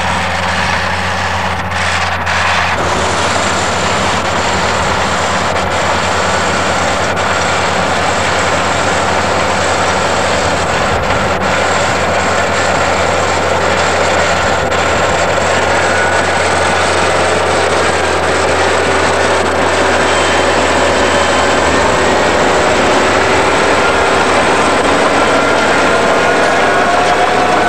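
Crawler bulldozer's diesel engine running steadily at work, a constant low drone over a dense mechanical noise, with faint higher tones that climb slowly in the second half.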